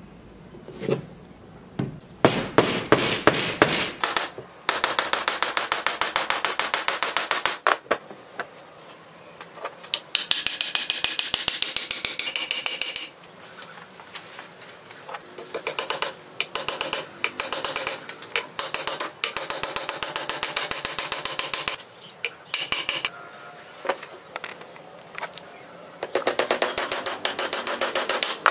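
Hammer driving steel nails into wooden boards: runs of rapid, evenly spaced blows, with short pauses between the runs.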